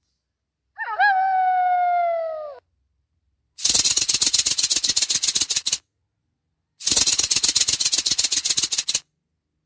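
Animal sounds played one after another: a drawn-out pitched call that flicks up and then slides slowly down, followed by two rattling buzzes of rapid clicks, each about two seconds long.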